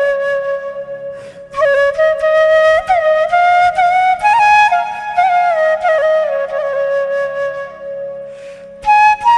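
Ringtone music: a flute plays a melody of held notes with slides between them, over a soft, steady accompaniment. The tune fades briefly about a second and a half in, and again near the end before coming back on a higher note.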